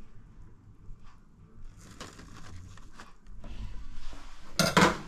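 Quiet handling of a paper-lined airfryer basket, with soft rustles and knocks. A short, loud rush of noise comes near the end.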